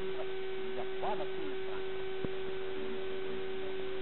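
Steady electrical hum, one unchanging mid-pitched tone, with faint indistinct voices underneath and a single short click a little past two seconds in.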